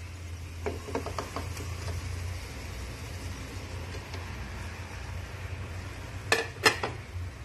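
Sliced mushrooms tipped from a plate into an aluminium pressure cooker, with a few light clicks about a second in and two sharp knocks of utensils against the cooker near the end, over a steady low hum.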